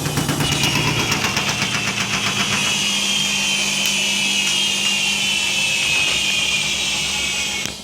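Washing machine on its final high-speed spin, with a high whine that slowly falls in pitch and a fast rhythmic pulsing for the first few seconds. The level drops suddenly right at the end.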